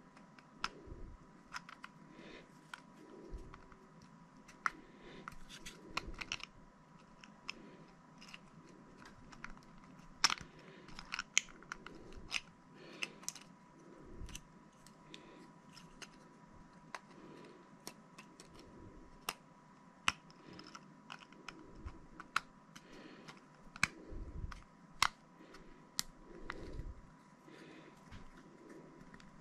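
Hard 3D-printed PLA plastic parts clicking and tapping against each other as they are handled and fitted together, in irregular small knocks.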